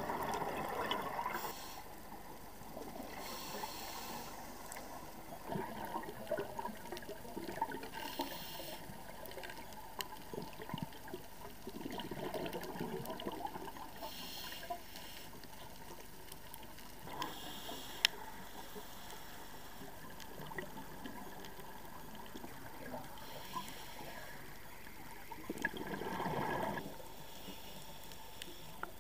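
Underwater sound of a scuba diver's breathing through a regulator: exhaled bubbles gurgle in recurring bursts, three of them strong, with shorter hissing breaths between, over a steady underwater hiss.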